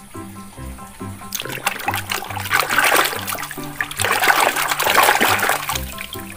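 Water splashing and sloshing as a muddy plastic toy is scrubbed by hand in a basin of water. The splashing starts about a second in and stops shortly before the end, over background music.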